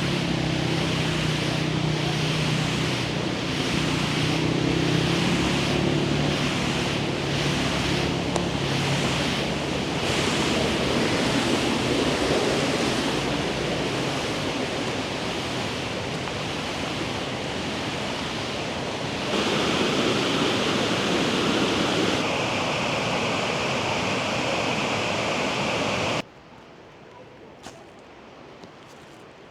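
Loud, steady rushing of water from a mountain stream. It cuts abruptly to a much quieter background near the end.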